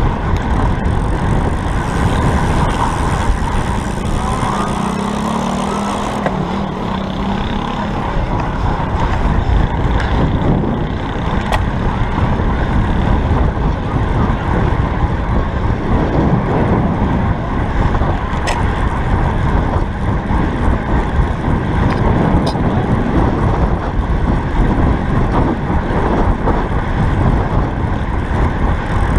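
Steady wind rushing over the microphone of a camera mounted on a rider of a road bike at racing speed, mixed with tyre noise on asphalt.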